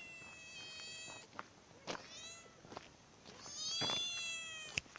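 Cats meowing: three high-pitched meows, a long one, a short one, then the loudest about three and a half seconds in, followed by a sharp click.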